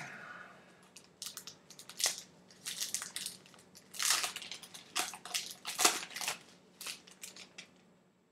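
Plastic wrapping of a pack of football trading cards being crinkled and torn open by hand: a series of irregular crackles and rustles.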